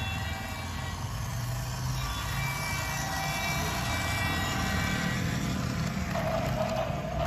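Electric toy trains running on plastic track, a steady mechanical whir; a stronger hum comes in about six seconds in.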